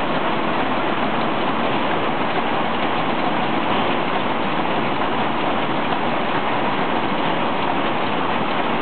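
Muller Martini 3215 Ventura book-sewing machine running: a steady, dense mechanical noise with no clear beat.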